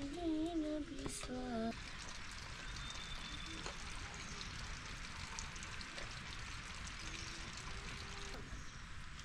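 Running water: a steady rushing hiss that starts abruptly about two seconds in and stops abruptly about a second before the end.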